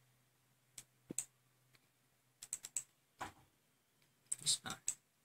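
Faint, scattered clicks and taps from a laptop's keys and pointer buttons, in small clusters about a second in, around two and a half seconds, and between four and five seconds.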